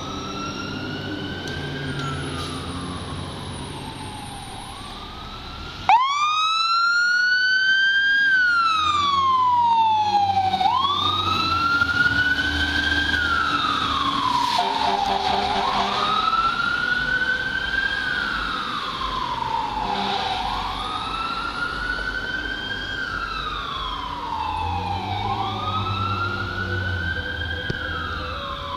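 Fire engine's Federal Q2B mechanical siren wailing, its pitch rising and falling about every five seconds. It is faint at first and jumps sharply louder about six seconds in. A brief steady air-horn tone sounds about halfway through.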